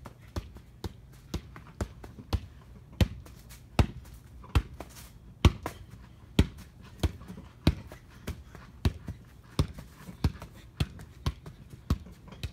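Soccer ball being juggled: a run of sharp thuds as a foot repeatedly kicks it back up, about one or two a second and unevenly spaced.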